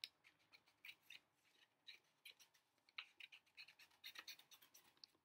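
Scissors cutting a curved shape out of painted paper: quiet, irregular snips.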